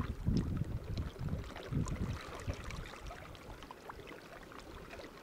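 Wind buffeting the microphone in low gusts, strongest over the first half, over water washing among shallow rocks with a light, scattered crackle.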